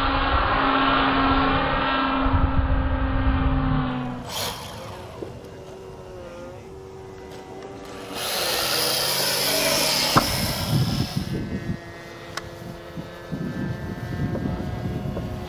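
Radio-controlled model airplanes flying past, each motor a steady drone whose pitch slides up and down as the plane passes and manoeuvres. The sound changes abruptly about four and eight seconds in as a different plane is heard, with a louder rushing hiss for a few seconds after eight seconds in.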